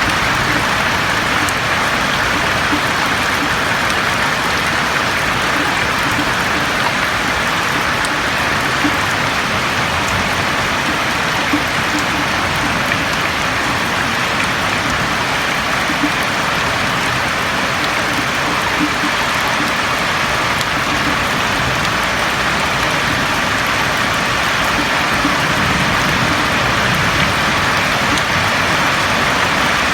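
Steady rain falling on a roof, a dense, even patter that keeps up without let-up.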